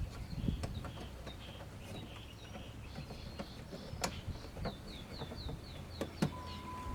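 Small birds chirping in short high repeated notes, with a few sharp clicks and knocks from parts being handled. A steady high tone starts near the end.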